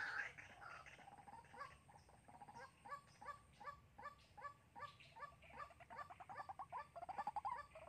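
White-breasted waterhen calling: a rapid run of short repeated notes, about three a second, starting a second or so in and growing louder near the end.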